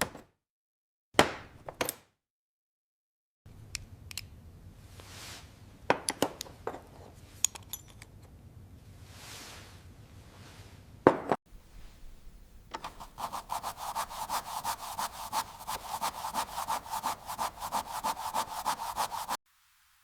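A few sharp clicks and knocks, then a stretch of scattered clicks and soft swishes from hand work on metal. About two-thirds of the way in, a hand tool starts rasping back and forth across metal at about six strokes a second, and it stops abruptly near the end.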